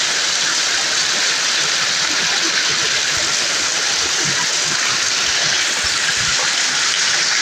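Steady rush of flowing floodwater, an even unbroken hiss.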